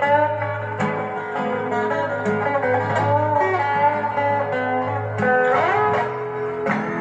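Music: a song passage led by guitar over a steady bass line, with no singing.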